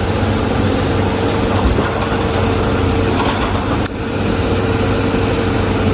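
Heavy diesel engine idling steadily, a constant low hum with a thin steady whine above it. The level dips briefly about four seconds in.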